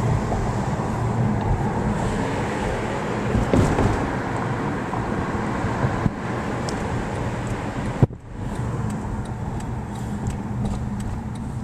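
Steady road and engine noise heard inside a moving car. A sharp click comes about eight seconds in, and faint regular ticking follows.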